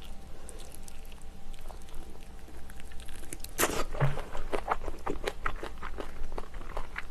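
Close-miked eating sounds of monkfish from a seafood stew being chewed: wet clicks and smacks of the mouth. They are sparse and quiet for the first three seconds or so, then grow dense and louder after a sharper sound about three and a half seconds in.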